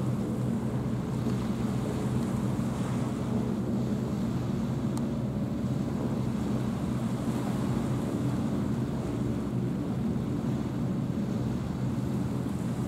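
Steady low drone of a ship's diesel engine carrying across the water, an even hum with no change in pitch, over a haze of wind and small waves.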